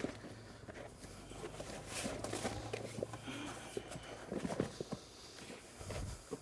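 Faint scuffing, footsteps and light knocks as workers pull back a rubber pond liner around the stones.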